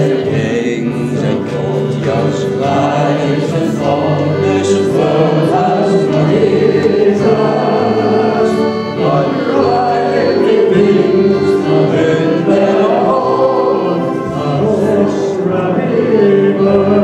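A man singing a slow song solo into a microphone, with sustained notes over an instrumental accompaniment.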